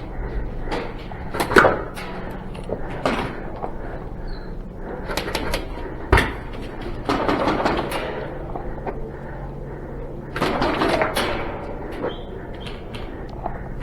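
Irregular sharp knocks and clicks from an indoor airsoft game, with bouts of rustling and shuffling movement a third of the way in and again near the end.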